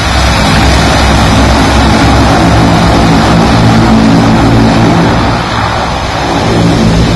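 Twin turboprop engines of a Canadair CL-415 firefighting water bomber running as it taxis, a loud steady propeller drone with a rushing noise over it.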